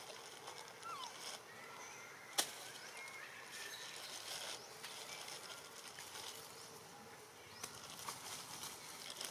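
Outdoor forest ambience of insects buzzing steadily, with a short curling call about a second in and one sharp click about two and a half seconds in.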